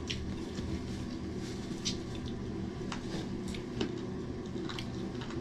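People eating chicken and rice by hand: soft chewing and mouth sounds with a few scattered light clicks and rustles of fingers on the plastic sheet, over a steady low hum.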